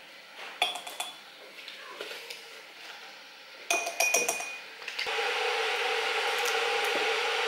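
Glassware and a spoon clinking on a kitchen bench as supplement tubs, lids and small glass jugs are handled, with a cluster of sharp, ringing clinks a little under four seconds in. About five seconds in, a steady rushing noise with a hum starts and keeps going.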